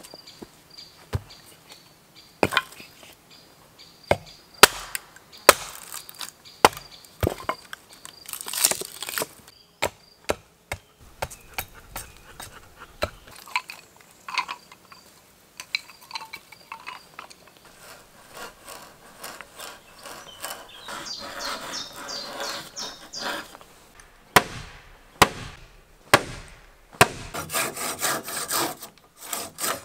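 Hand tools working wood: scattered sharp knocks and taps, then from about two-thirds of the way through, runs of fast, rhythmic scraping strokes on the wood.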